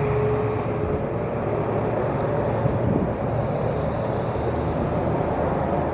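Chainsaw engine running steadily, a dense noisy drone over a low engine hum.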